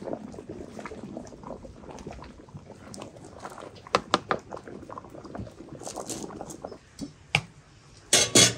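Water with rice boiling hard in a large aluminium pot, a steady bubbling, with a few sharp knocks of a ladle against the pot about four seconds in. A brief loud clatter comes near the end.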